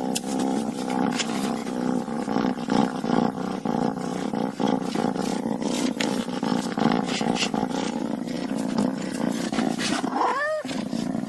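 Angry cat growling in one long, unbroken low drone, with a short yowl that rises and falls in pitch about ten seconds in.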